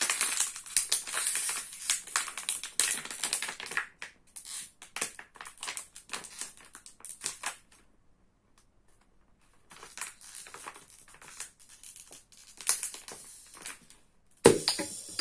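Capped plastic water bottle with a little water inside crackling and crinkling as it is twisted tight, squeezing the air inside. The crackling is dense at first, thins out and stops for a moment, then starts again, with a sudden loud snap near the end.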